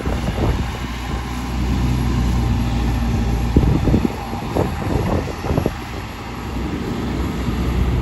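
An engine running steadily, with wind buffeting the microphone and several short knocks about halfway through.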